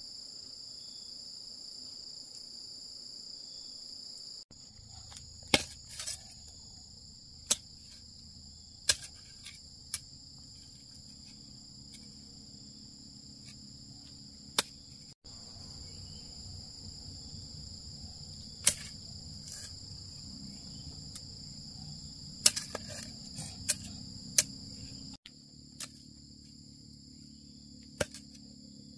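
Steady high chirring of insects, dropping and returning a few times, with a dozen or so sharp irregular knocks of a small hand hoe striking into the soil.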